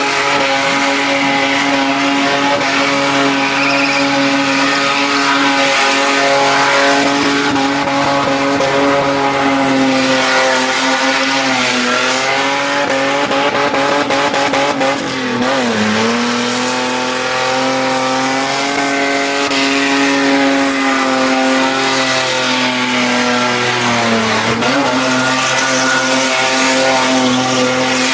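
Ford XR6 Falcon's straight-six engine held at high revs through a burnout, with the rear tyres spinning and screeching on the pad. The revs sag and climb back a few times, around the middle and again later on.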